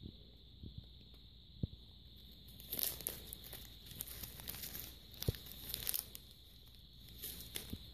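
A thin clear plastic bag crinkling in bouts as a raccoon mouths and tugs at it to get at the marshmallow inside, from about three to six seconds in and again briefly near the end, with a couple of soft knocks.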